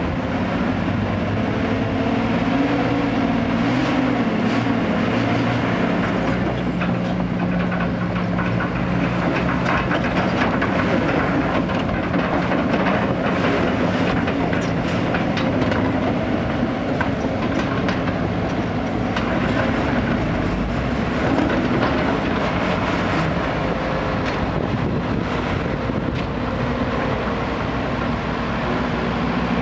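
Diesel engines of a Sumitomo SH210 crawler excavator and a ten-wheel dump truck running hard together, their pitch swelling and easing, with scattered knocks and clanks.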